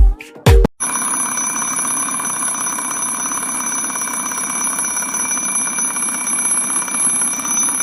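Alarm clock ringing loudly and continuously; it starts just under a second in, as background music cuts off.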